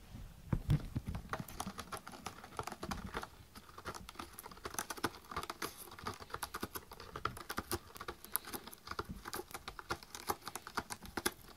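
A cat licking and chewing, making quick, irregular small clicks, several a second. A brief rustle and bump of cloth being handled comes in the first second.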